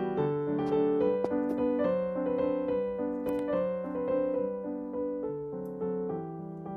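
Background piano music: a melody played over held chords.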